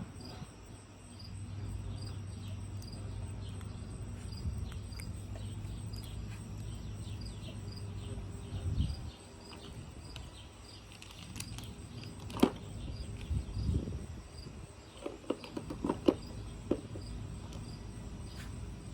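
A cricket chirping steadily, about two chirps a second, with a low hum in the first half. A few sharp clicks of plastic lip gloss tubes being handled come about two thirds of the way in.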